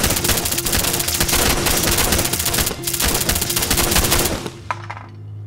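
Rapid, continuous handgun fire from several pistols at once, a dense volley of shots over a film score. The volley stops about four and a half seconds in, followed by a few light clinks.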